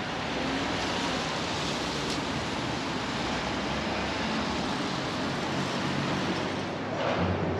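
Steady rain with traffic hissing past on wet city streets, an even wash of noise that grows louder briefly near the end.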